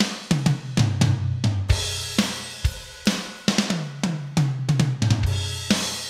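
Acoustic drum kit played solo: a busy run of bass drum, snare and tom strokes, the toms ringing low and dropping in pitch after each hit, with cymbal crashes ringing out between them.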